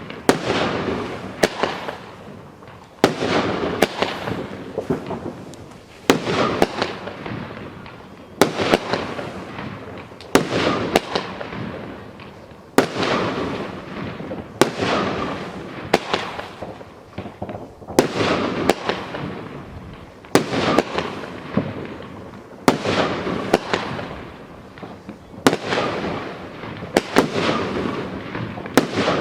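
A consumer fireworks battery (cake) firing shot after shot, about one every second or two. Each shot is a sharp bang followed by a crackling hiss that fades over a second or so, and sometimes two shots come close together.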